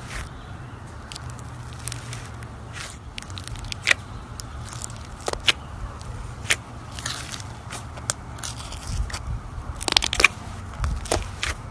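Floam slime being squeezed and poked, its foam beads crackling and popping in irregular clicks, with a dense cluster near the end, over a faint low hum.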